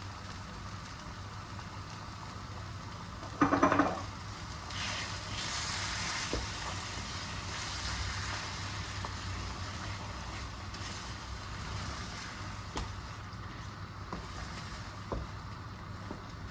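Food sizzling in a pan as it is stirred, with a few light utensil taps and a short louder clatter about three and a half seconds in, over a steady low hum.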